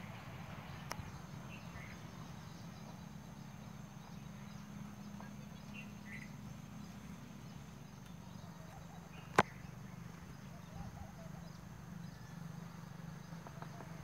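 Quiet outdoor ambience with a steady low hum and a few faint short bird chirps, broken once by a single sharp tap about nine seconds in.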